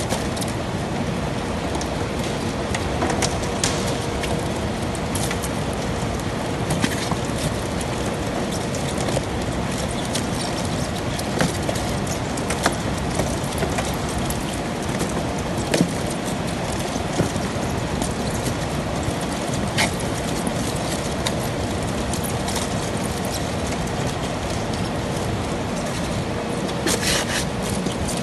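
Steady machinery noise with a faint hum, broken by scattered sharp clicks and rattles as live langoustines are handled and dropped into polystyrene boxes.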